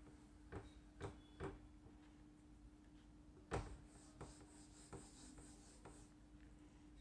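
Faint marker strokes on a whiteboard, then a knock and a soft rubbing as the written word is wiped off the board, with a few light taps; a low steady hum underneath.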